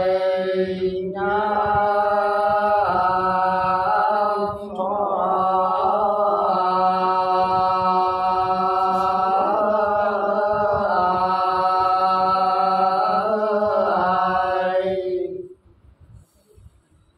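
Several men singing soọng cô, the Sán Dìu people's antiphonal folk song, together and unaccompanied: long, slow, drawn-out notes with short breaths between phrases. The singing stops near the end.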